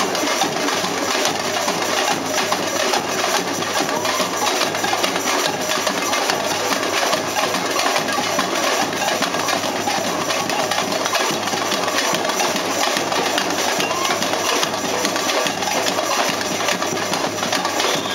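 Samba music driven by fast, steady drumming and other percussion, playing without a break.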